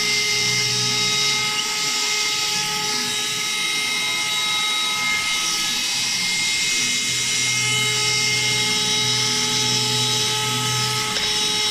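Small cordless handheld vacuum cleaner running steadily, its motor giving a constant high whine over the rush of air.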